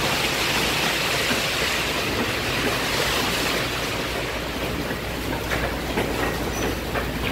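Belanger car wash tunnel running: cloth wraparound brushes scrubbing a car over a steady hiss of spraying water, with a few sharp knocks in the last couple of seconds.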